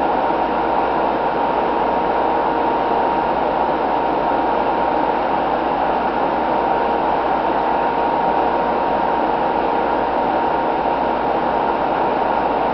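Steady, even hiss-like noise with a faint constant high tone. Nothing changes, and no crowd, whistle or tackle sounds stand out.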